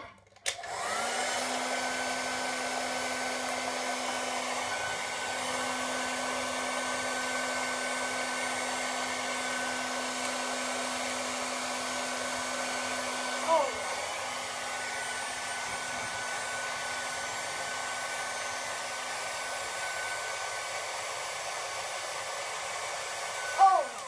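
Handheld hairdryer starts about half a second in and runs steadily, an airy blowing with a motor hum and a high whine. A short falling sound comes about halfway through, and near the end a loud knock comes just as the dryer stops.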